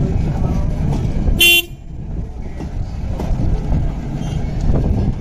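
Passenger coaches rolling over a road grade crossing, a steady low rumble of train wheels on rail, broken about one and a half seconds in by a single short horn toot.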